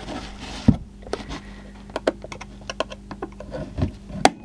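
Irregular light clicks and taps of a screwdriver and fingers on the metal case of a Western Digital hard drive as its top cover is pried loose and the drive is turned over, with a sharper knock about two-thirds of a second in and another near the end.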